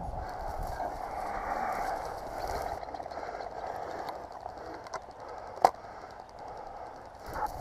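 Footsteps and rustling through dry crop stubble at a steady walk. One sharp click sounds about five and a half seconds in.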